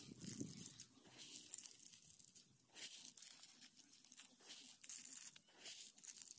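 Faint scratchy rustling and crunching of a hand spreading and pressing loose soil over a plastic seedling tray, in irregular strokes.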